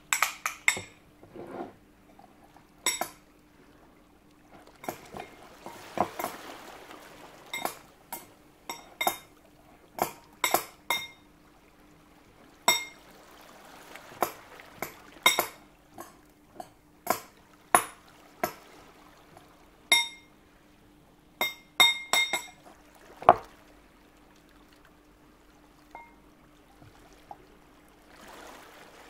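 Kitchen utensils clinking repeatedly against glassware, each clink ringing briefly, with liquid being poured for a couple of seconds early on.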